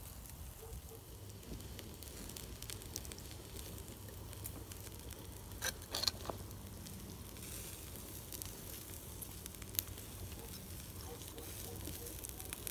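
Sirloin steaks sizzling faintly over a campfire, with the fire crackling and giving a few sharper pops.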